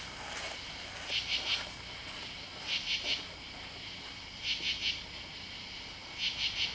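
Katydid calling: short groups of three rasping pulses, repeated evenly about every second and a half to two seconds.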